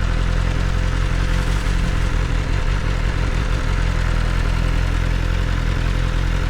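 A motorcycle engine, likely the BMW M 1000 R's inline-four, running steadily with an even low drone, a faint constant whine above it and a wide rushing noise.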